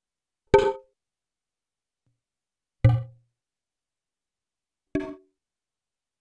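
Computer-synthesized strikes on three wooden drums of different shapes and sizes, made by modal sound synthesis with simulated drum-cavity acoustics. Three single hits come about two seconds apart. Each is a short knock with several ringing tones that dies away within a fraction of a second, and the second has a strong low tone.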